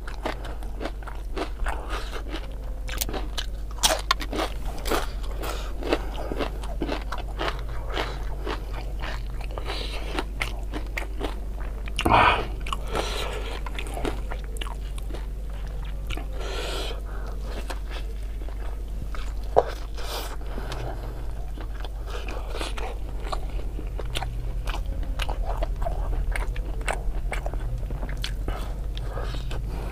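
Close-up eating sounds: crunchy bites and chewing of crisp fried tempeh chips and fried tofu fritters dipped in sambal, in an irregular run of crunches with one louder burst about twelve seconds in. A steady low hum runs underneath.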